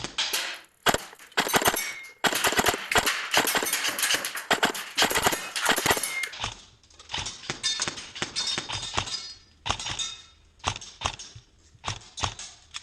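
Airsoft rifle firing on a range: a few shots, then a rapid burst lasting about four seconds, then a string of separate shots.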